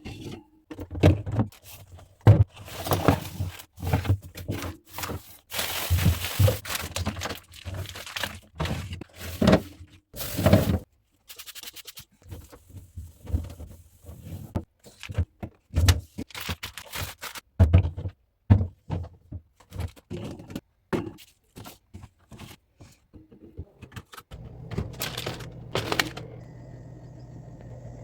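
Fridge shelves, drawers and containers being handled during cleaning: repeated knocks, clatters and scrapes, with stretches of rubbing or scrubbing noise. A steady low hum comes in about four seconds before the end.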